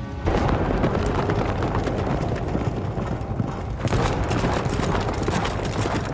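A body of armoured soldiers on the move: a dense, irregular clatter of many footsteps and rattling plate armour. It starts suddenly just after the start and turns sharper and hissier about four seconds in.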